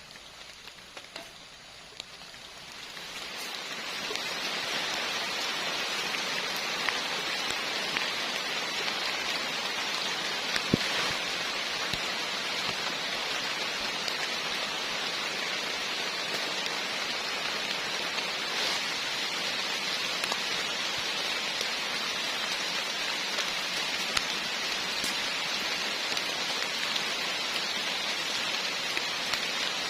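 Heavy rain falling steadily, building up over the first four seconds, with a few sharp drop ticks.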